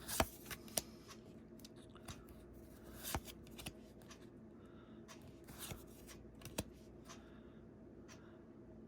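Magic: The Gathering trading cards being handled and sorted by hand: soft slides and rustles with scattered sharp clicks as cards are flipped and laid down, over a faint steady hum.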